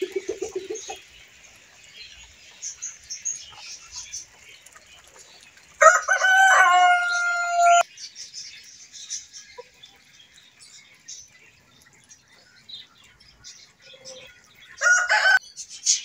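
A rooster crows once, a loud call held for about two seconds near the middle, and a second, shorter loud call comes near the end. Faint high chirps of small birds sound on and off throughout.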